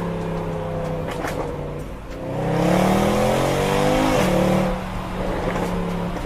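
Car engine idling through its exhaust, then revved once: the pitch climbs for about two seconds and drops quickly back to idle.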